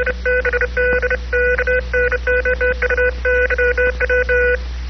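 Morse code coming in as a keyed radio tone: a pitched beep switched on and off in a fast, uneven rhythm of dots and dashes, with a short break near the end, over a steady low hum.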